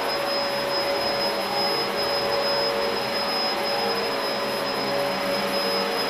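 Dyson DC04 Absolute Plus upright vacuum cleaner running steadily as it is pushed over carpet: an even rush of motor and airflow with a thin high whine.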